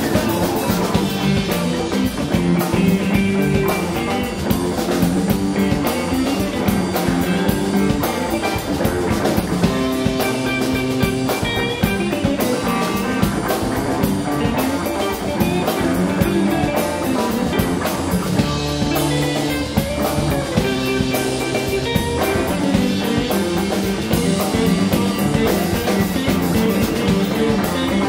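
Live blues-rock band playing an instrumental stretch: electric guitar lines with bent notes over bass and a drum kit keeping a steady beat.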